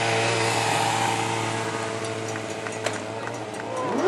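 Sport motorcycle engine running at steady revs, then revving up sharply near the end.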